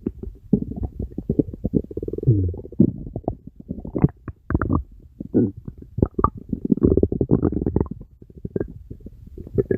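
Stomach rumbling: a continuous, irregular run of gurgles and short pops, with a brief falling gurgle a little over two seconds in.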